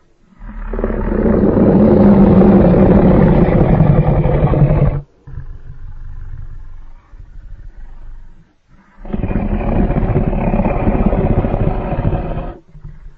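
Fan-made dinosaur-monster roar sound effects: one long roar of about five seconds, a quieter, lower stretch, then a second roar of about three and a half seconds.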